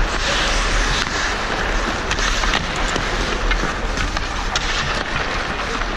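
Ice hockey play heard from a skating referee's body camera: skates scraping and carving the ice, with scattered sharp clacks and knocks of sticks, puck and boards over a low rumble of wind on the microphone.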